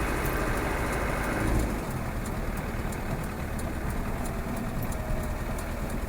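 Land Rover Defender 110 engine running, heard from inside the cab while driving, with a faint ticking over it. The engine note eases off about a second and a half in.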